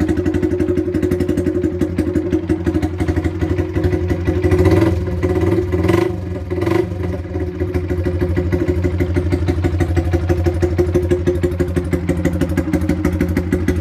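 Rieju RS3 125 cc motorcycle engine idling with no silencer, just a bare pipe: a loud, fast, even exhaust pulse. The note wavers briefly between about five and seven seconds in, then settles back to a steady idle.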